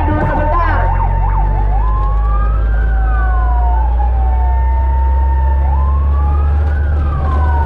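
Fire truck siren heard from inside the cab, giving a quick yelp near the start and then a slow wail that rises and falls twice, over the truck's engine running steadily underneath.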